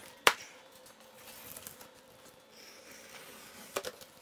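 A knife blade cuts through a plastic shipping strap on a cardboard box, which gives a single sharp snap. A faint scraping follows as the blade slits the packing tape, and near the end a few soft knocks as the cardboard flap is lifted.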